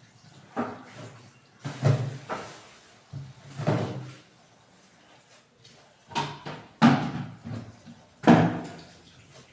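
Kitchen items being handled and put away: about seven separate clunks and knocks, irregularly spaced, some of them door- or cupboard-like bangs.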